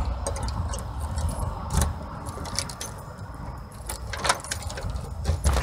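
Keys jangling as a key is worked in a front-door deadbolt lock, with a few sharp clicks from the lock, over a low rumble.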